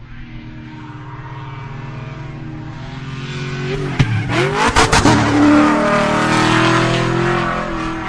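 Race-car engine sound, revving and growing louder, with a fast pass-by with a sharp pitch swing about four to five seconds in, after which the engine runs on loudly.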